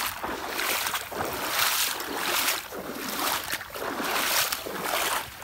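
Legs in chest waders wading through flood water, a splash and slosh with each stride, about once a second.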